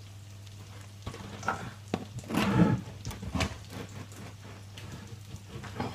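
A bread knife sawing through the crackly crust of a giraffe (tiger) loaf: a series of irregular rasping, crunching strokes, strongest about two and a half seconds in, over a steady low hum.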